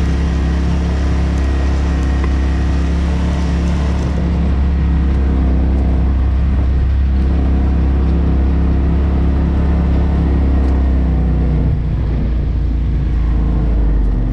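Polaris RZR turbo side-by-side's engine running steadily as it drives, a continuous low drone.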